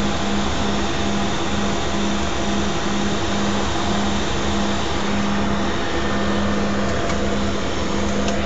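Cessna Grand Caravan's single turboprop engine and propeller running while the aircraft taxis, heard inside the cabin: a steady loud drone with a low hum that beats about twice a second.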